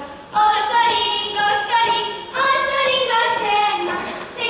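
Girls' voices singing a Hungarian folk song in unison without instrumental backing, as they dance in a ring. They sing in phrases of about two seconds, with short breaks for breath between them.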